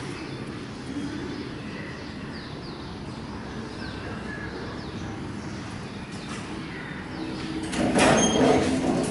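Toshiba passenger elevator arriving, its stainless-steel landing doors sliding open about eight seconds in, with a brief high tone as they open. Before that there is only a steady low background hum.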